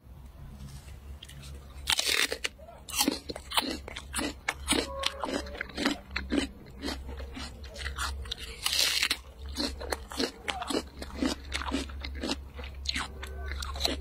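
Someone biting into and chewing crisp fruit: loud crunchy bites about two seconds in and again near nine seconds, with a quick run of crunching chews between and after.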